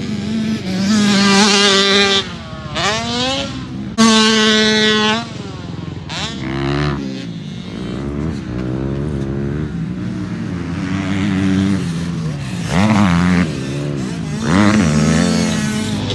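Small two-stroke Cobra youth dirt bike engines revving up and down over and over, the pitch rising and falling as the bikes accelerate and back off through the corners.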